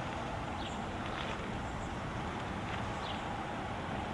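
Steady outdoor background noise with a few faint, short, high chirps scattered through it.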